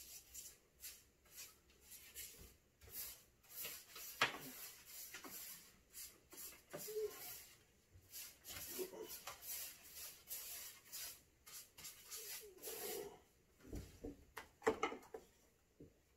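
Paintbrush bristles swishing over a wooden cabinet face frame in a run of short, uneven strokes, brushing paint into the corners. A sharp tap about four seconds in and a couple of knocks near the end.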